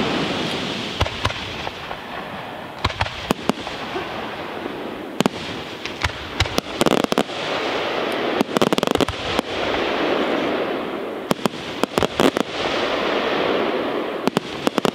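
Aerial firework shells bursting in a pyrotechnic display: many sharp bangs, several in quick runs, over a continuous wash of noise from the bursting and burning stars.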